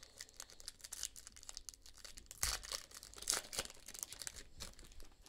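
Foil trading-card pack being torn open and crinkled by hand: a string of faint crackles, louder for a moment about two and a half seconds in.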